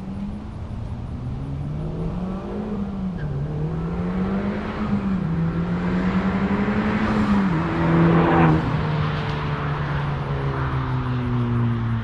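2020 Honda Civic Type R's turbocharged 2.0-litre four-cylinder heard through a muffler- and resonator-deleted exhaust while driving. Its pitch climbs and drops back several times, loudest and roughest about eight seconds in, then settles to a slowly falling note as the car eases off.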